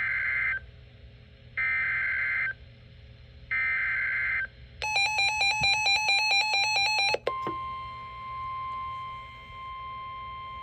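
Emergency Alert System broadcast alert tones: three short bursts of the SAME digital header's screech, then about two seconds of a harsh, rapidly pulsing tone, then a steady single-pitch attention tone that starts about seven seconds in and holds.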